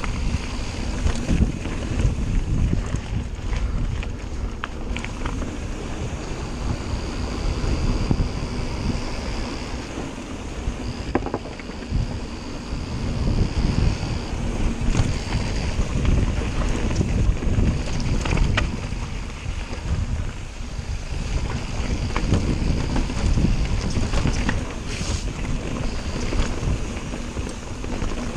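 Cotic Flare mountain bike descending a forest trail at speed: wind buffeting the camera's microphone over the rumble and rattle of tyres and frame on rough ground, with frequent sharp knocks from bumps and a high whine that comes and goes.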